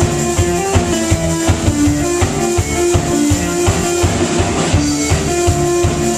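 A live rock band playing: electric guitars, bass guitar and keyboard over a drum kit keeping a steady beat, picked up on a small camcorder's microphone.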